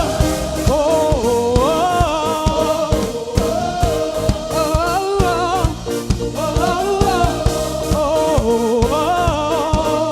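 Live worship band playing a gospel-pop song: a steady drum beat under sustained chords, with a singer's vocal line gliding and wavering in pitch over it.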